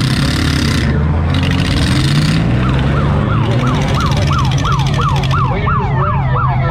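Demolition derby car engine running steadily. From about two and a half seconds in, a siren sounds over it as a fast series of falling whoops, about three a second.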